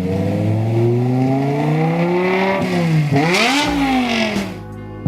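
BMW E90 M3's S65 V8, with its primary catalytic converters deleted by test pipes, accelerating with a steadily rising exhaust note. About three seconds in the pitch dips sharply, climbs again briefly, then falls away and fades near the end.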